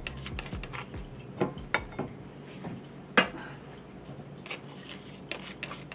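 Light clicks and knocks of a glass spice jar being shaken and tapped over a small ceramic bowl as lemon pepper seasoning is shaken out. There are a few scattered taps, and the sharpest click comes about three seconds in.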